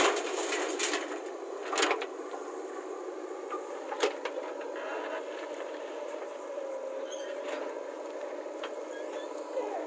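JCB 3DX backhoe loader digging soil: its diesel engine runs steadily under load, with a few sharp knocks and clunks as the bucket and arm work, at the start and again about two and four seconds in.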